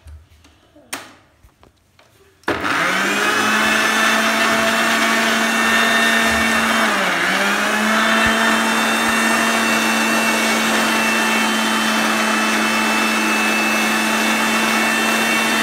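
Panasonic mixer grinder switching on about two and a half seconds in, after a few faint knocks, then running steadily as it blends a batter of banana, egg, sugar and flour in its jar. The motor whine sags briefly in pitch once, about seven seconds in, then recovers.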